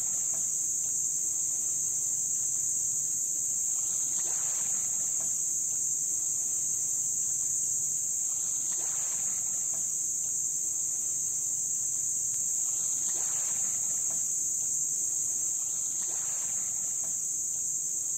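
Steady, high-pitched buzz of insects in the island's trees, with small waves washing onto the beach about every four seconds.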